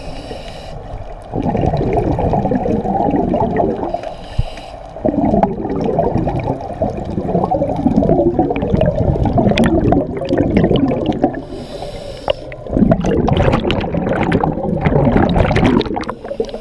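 Scuba diver breathing through a regulator underwater: a short hiss on each inhale, then a long bubbling rumble of exhaust bubbles, about four breaths in all.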